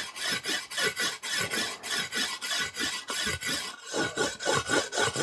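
A whetstone rubbed in short, quick strokes along the steel edge of a hedge-cutting hook, honing the secondary bevel, about three strokes a second with a brief pause near four seconds in.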